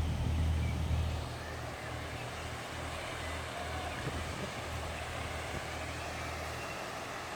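Narrowboat diesel engine running with a steady low hum, a little louder for the first second or so, over faint outdoor background noise.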